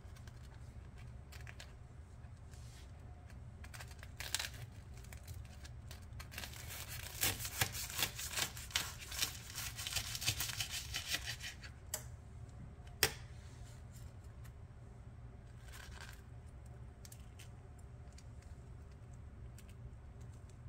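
A kitchen knife saws through the fried, chip-crusted shell of an egg roll, and the crust crackles and crunches for several seconds. A single sharp click follows, over a steady low hum.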